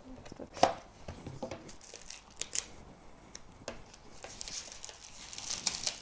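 A toy's retail box being unboxed by hand: cardboard and packaging clicking and knocking, the loudest knock less than a second in. Near the end come a few seconds of rustling and tearing of packaging.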